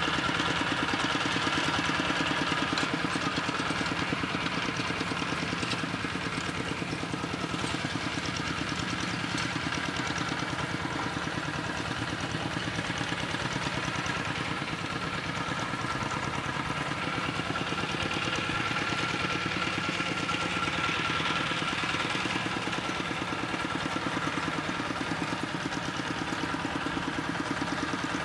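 An engine running steadily at a constant speed with a fast, even firing beat.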